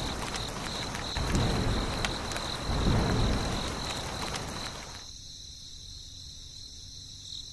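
Insects, likely crickets, chirping in a steady pulsing high trill, over a rushing noise that swells a few times and cuts off abruptly about five seconds in.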